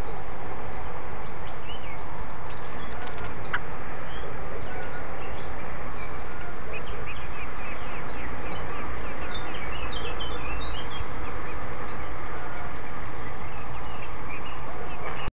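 Eurasian blackbird nestlings giving many short, thin, high begging chirps to be fed, thickest in the middle of the stretch, over a steady hiss.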